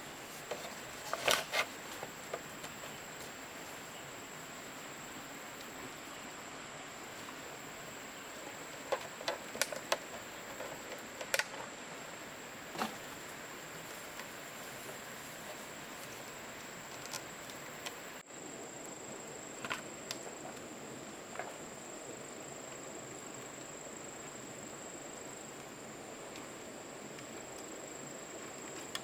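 Steady high-pitched insect drone, with a few scattered sharp clicks and knocks, the loudest near the start and around ten seconds in.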